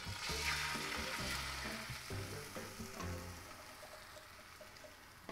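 Beaten egg poured into a hot, oiled rectangular tamagoyaki pan, sizzling as it hits the pan, then dying down over a few seconds as the thin layer sets.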